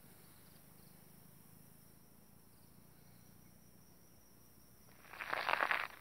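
Faint steady high insect buzz over quiet woodland ambience. About five seconds in, a loud rustling, scraping noise lasts about a second.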